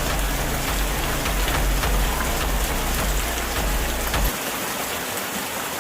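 Steady heavy rain falling, an even hiss with scattered drop ticks, over a low rumble that cuts off suddenly about four seconds in.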